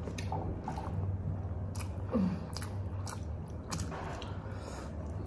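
Close, wet chewing and mouth smacks of someone eating a mouthful of rice and pork, with short clicks at irregular intervals.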